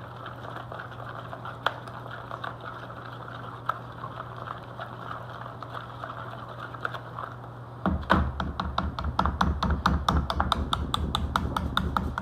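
Batter being stirred in a bowl: a few light scattered taps at first, then from about eight seconds in a fast, even clicking of the utensil against the bowl, about seven strokes a second. A steady low hum runs underneath.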